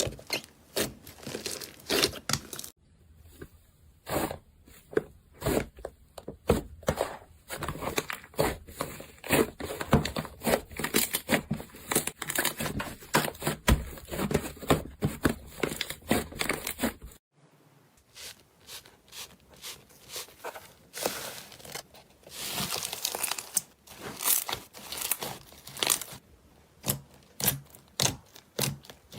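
Slime being squished, stretched and poked by hand, making a dense run of small sticky pops and clicks, with a brief pause a little over halfway through.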